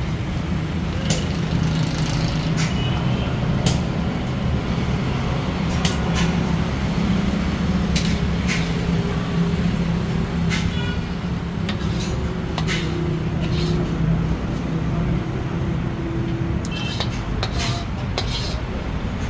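Steady low roar of a commercial wok station, the burner and its fan running with a constant hum. Over it, a metal ladle clinks and scrapes against the steel wok every second or two as sauced pasta is tossed, one strike ringing briefly.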